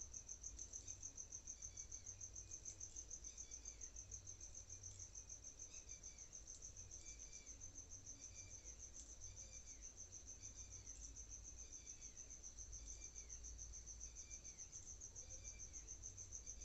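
Faint cricket chirping in a steady, fast-pulsing high trill, with short falling chirps repeating underneath and a low background hum.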